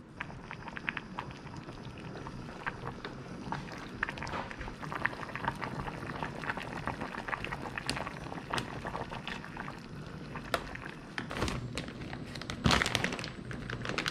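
Pot of seaweed soup bubbling on the stove, a steady crackle of small pops, with a few louder knocks near the end.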